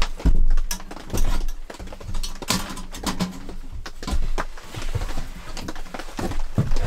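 Irregular metal clanks, clicks and scrapes of a small sheet-metal folding camp stove being handled and stood up on its fold-out legs on a plank floor.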